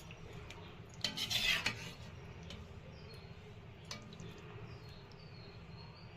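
Metal spoon scraping and clinking in a cooking pot as the curry is stirred, with one louder scrape about a second in and a sharp clink near the end.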